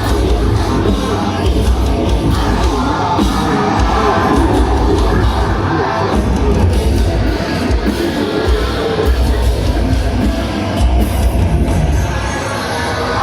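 Metal band playing live: loud, dense heavy metal with a strong low end and vocals over it.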